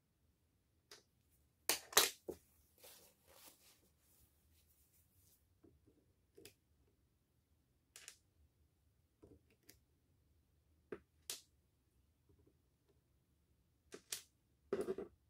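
Scattered sharp clicks and knocks of small tools and drill parts being handled: a loud double click about two seconds in, single ticks every second or two, and a louder cluster near the end.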